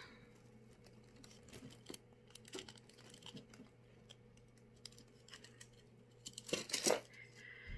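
Faint taps and rustles of hands handling a paper jewelry card, with a louder burst of paper rustling about six and a half seconds in.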